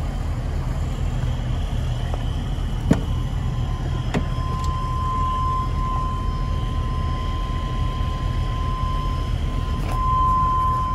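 Chevy Express 3500 box truck's engine idling steadily. Two sharp clicks about three and four seconds in, then a steady high-pitched tone that keeps sounding.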